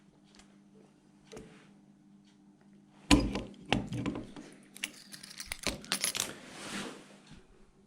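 A watch caseback being pressed shut with a closing tool: a sharp metallic click about three seconds in, then a run of small clicks and rattles of the tool and watch being handled.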